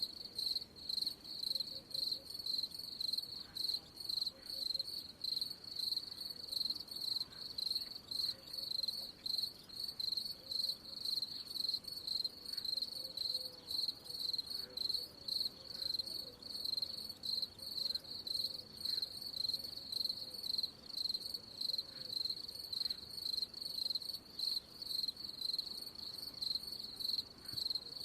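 Cricket chirping: a steady, even run of high-pitched chirps, a few each second.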